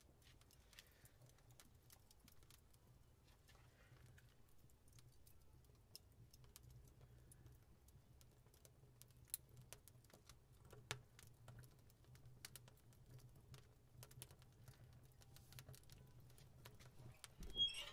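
Faint, irregular crackling and ticking of a dry split log catching fire on a bed of hot coals in an offset smoker's firebox. A louder knock comes right at the end.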